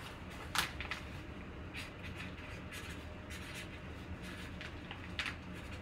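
Quiet handling noises as trading cards are handled: a few short, soft scrapes and rustles, the clearest about half a second in and again near the end, over a low steady hum.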